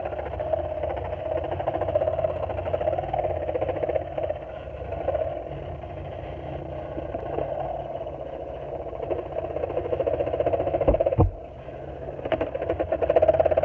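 Porter Cable scroll saw running, its blade cutting wood in a fast, steady chatter as the board is fed through. About eleven seconds in there is a sharp knock, and the cutting sound drops off for about a second before it picks up again.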